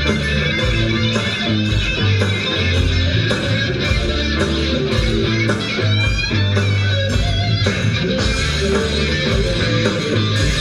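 Live rock band playing an instrumental passage of the song: electric guitars over bass guitar and a steady drum beat, with a lead guitar line bending its notes about six seconds in.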